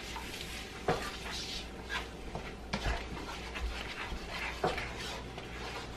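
Wooden spatula stirring and scraping spice paste as it fries in a nonstick wok, with a low sizzle and a few sharp clicks of the spatula against the pan.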